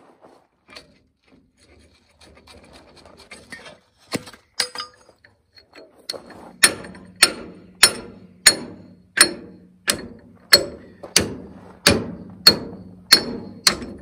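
Hammer pounding on the steel clamp and stuck wedge bolt of a Farmall 140's cultivator toolbar to knock them loose. A few light clinks and two sharper knocks come first, then from about halfway in a steady run of ringing metal-on-metal blows, about three every two seconds.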